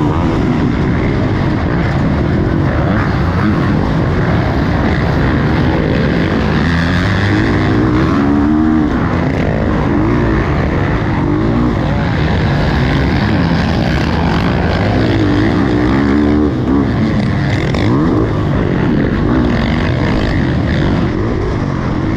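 Motocross bike engines revving hard at racing speed, the pitch climbing and dropping again and again with gear changes and throttle, over a steady noisy rush.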